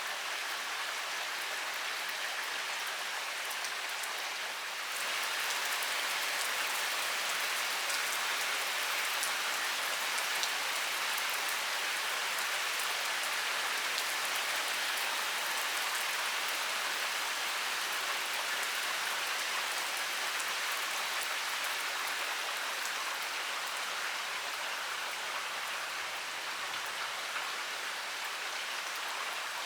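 Heavy rain pouring steadily, a dense hiss of drops with fine patters on a surface. It grows slightly louder about five seconds in.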